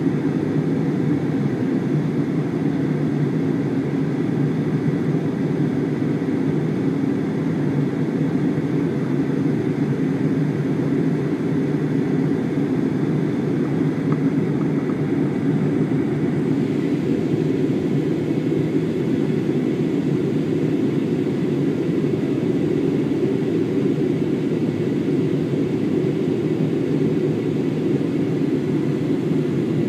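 Steady cabin noise of a Jetstar Airbus airliner in flight during its descent, heard inside the cabin at a window seat: an even, low-pitched drone of engines and airflow that does not change.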